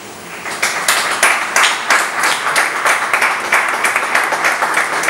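Audience applauding: clapping starts about half a second in and quickly builds to steady, dense applause.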